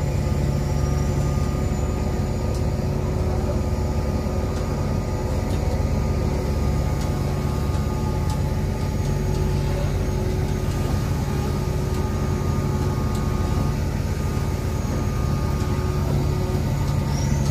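Purse seiner's engine machinery running steadily: a constant low drone with a few steady humming tones.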